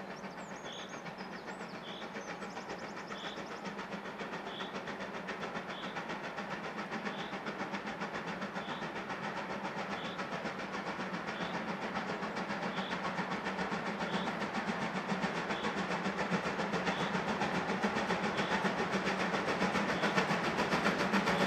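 Steam locomotive approaching while working hard, its exhaust beating rapidly and evenly and growing steadily louder as it nears. A short high squeak repeats about every second and a half.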